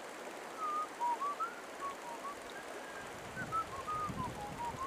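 A run of about twenty short whistled notes, each sliding up or down in pitch, hopping between higher and lower notes over the steady rush of the river.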